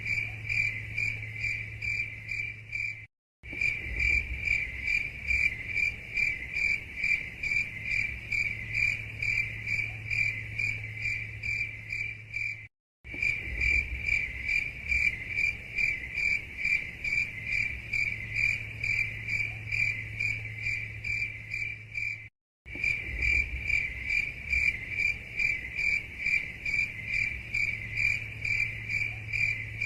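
Crickets chirping steadily, a high pulsing chirp about three times a second over a faint low hum. The looped track drops to silence for a split second three times, about every nine and a half seconds.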